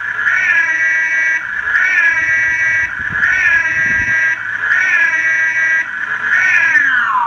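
Electronic police-style siren, a Feniex Storm Pro 100-watt siren driving a Triton speaker, sounding a repeating tone: a quick rise to a held high pitch about every one and a half seconds, then winding down in a long falling glide near the end.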